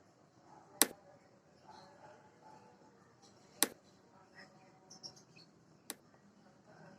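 Three short, sharp clicks or taps, about a second in, just past the middle and near the end, over faint background noise.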